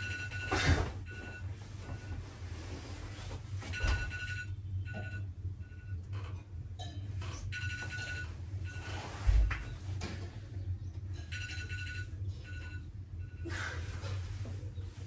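Hidden electronic alarm clock beeping: groups of short, evenly spaced beeps on one high tone, repeating several times. Rustling and a low thump near the middle from someone moving on a bed.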